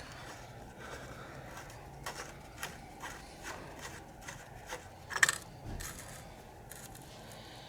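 Faint scattered clicks and scrapes of metal parts being handled as a motorcycle rear shock is lined up with its mounts, with a sharper clatter a little past five seconds in.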